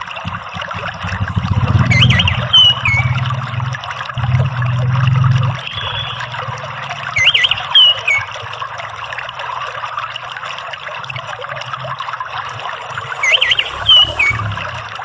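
Running water trickling steadily, with an orange-headed thrush's short whistled call repeated three times, about every five to six seconds. A low rumble sits underneath between about two and five seconds in.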